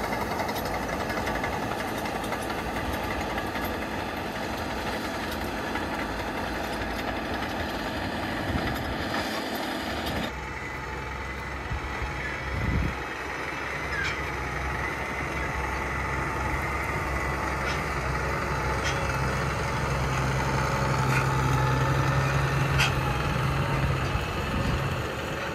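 FiatAllis FA 200 crawler tractor's diesel engine running under load as it pulls a disc harrow through stubble. About ten seconds in it cuts to a wheeled tractor's diesel engine working a chisel cultivator, with a steady low hum that grows louder near the end.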